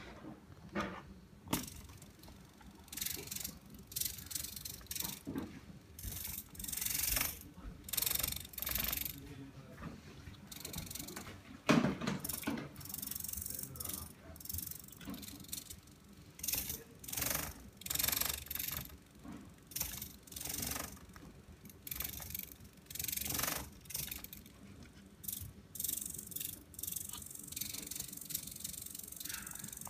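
Small 9g hobby servo motors of a MeArm robot arm whirring and buzzing in many short, irregular bursts as the arm's joints and gripper move. A single sharp knock stands out about twelve seconds in.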